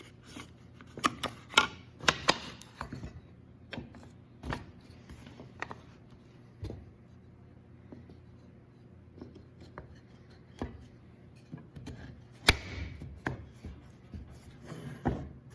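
Wooden box parts knocking, clicking and scraping against each other as a cut bottom plate is test-fitted into the grooves of a dry-assembled box. The taps come irregularly, with a run of sharper knocks about two seconds in and another loud one near the end.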